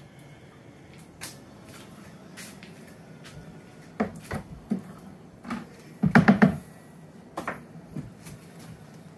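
Scattered knocks and clatter of a wooden honey frame and uncapping tool against a plastic uncapping tank as the frame is uncapped, with a quick run of about four louder knocks about six seconds in.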